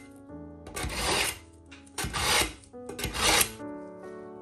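A steel kitchen knife drawn through a pull-through knife sharpener, three rasping strokes about a second apart.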